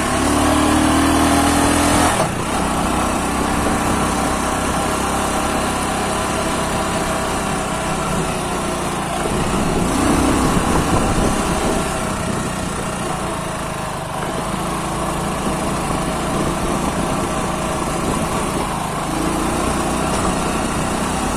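A small vehicle's engine running steadily while travelling along a dirt road, its note shifting a few times with speed.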